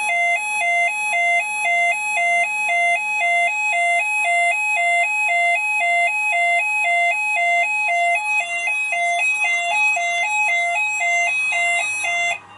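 Fire alarm sounder going off during a detector test: a loud two-tone warble alternating between a low and a high note about twice a second, cutting off suddenly near the end.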